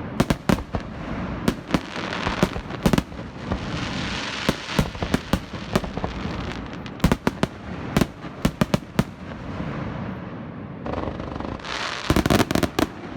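Fireworks display: an irregular series of sharp bangs and cracks, with a noisy wash between them and a dense flurry of rapid bangs near the end.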